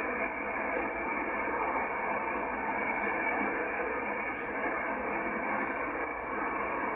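Yaesu FTdx10 shortwave receiver on upper sideband giving steady band hiss through its narrow sideband filter, with a weak, very narrow radio teletype signal buried in the noise.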